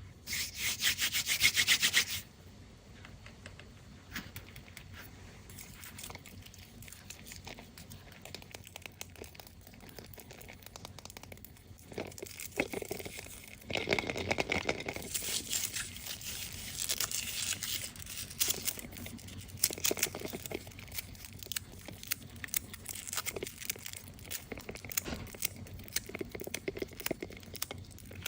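Candy wrappers being handled and torn open: a loud ripping stretch about half a second in, then softer crinkling and rustling, with a longer stretch of louder tearing and crinkling around the middle.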